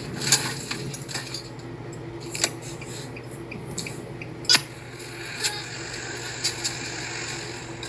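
Irregular sharp metallic clinks and clanks, about half a dozen, over a steady low hum.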